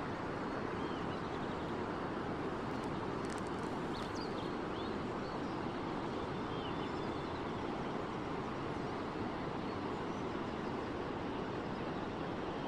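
Steady outdoor rushing noise with a few faint, short bird chirps about a second in and again around four and seven seconds.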